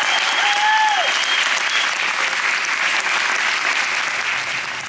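Theatre audience applauding loudly, with a held high note sounding over the clapping in the first second or so; the applause eases slightly toward the end.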